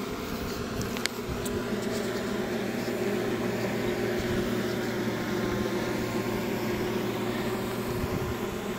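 A steady, even machine hum with a low buzzing pitch that holds unchanged throughout.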